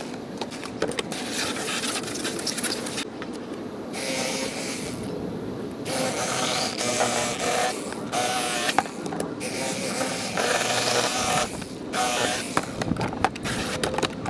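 Electric fillet knife buzzing in several short bursts as its reciprocating blades cut through crappie.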